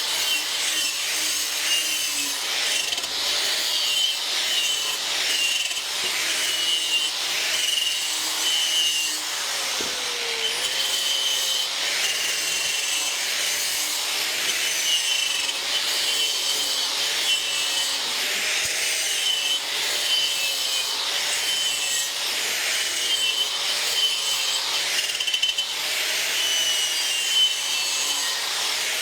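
Wire brush scrubbing old RTV sealant off a three-piece racing wheel half, a continuous scratchy scraping made of repeated strokes.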